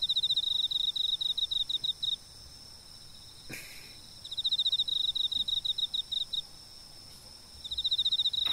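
Cricket chirping in rapid pulsed trills of about two seconds each, separated by short pauses, close by the door. A short scratchy noise comes once, about three and a half seconds in.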